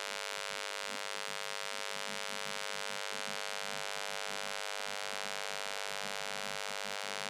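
Steady electrical buzz at one fixed pitch, even and unchanging.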